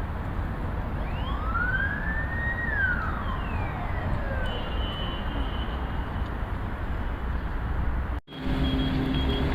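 A single siren wail, rising in pitch for about a second and a half, holding briefly, then falling away over the next two seconds, over a steady rumble of traffic. Near the end the sound drops out for a split second.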